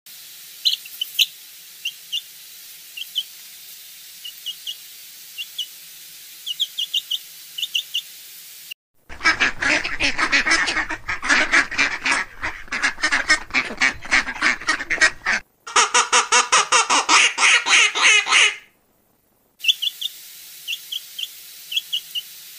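Young chicks peeping in short, high, separate chirps. About nine seconds in, a loud, dense chorus of ducklings' calls takes over for about ten seconds, broken once by a brief gap. The chicks' sparse peeping returns near the end.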